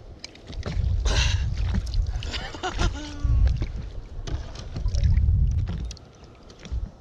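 A fish being netted and lifted into an inflatable boat: water splashing, the landing net and gear knocking against the boat, over a low rumble.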